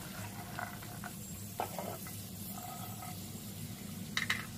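A spatula stirring and scraping roasted peanuts around a nonstick frying pan, with a faint sizzle of hot oil and a steady low hum beneath. There is one short knock about one and a half seconds in.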